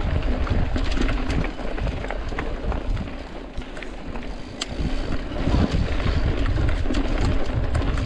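Cross-country mountain bike riding dirt singletrack: steady wind rumble on the microphone and tyre noise on the trail, with frequent sharp clicks and knocks as the bike rattles over rough ground. It eases for a couple of seconds in the middle, then picks up again.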